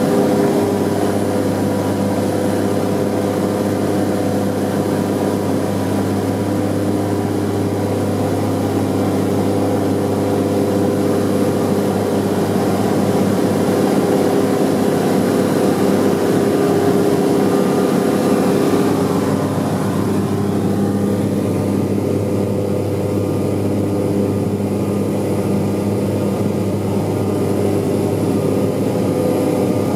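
The twin Pratt & Whitney R-985 radial engines and propellers of a Grumman G-21A Goose amphibian running steadily in flight, heard from inside the cockpit. A little past the middle the higher hiss drops away while the low engine tones carry on.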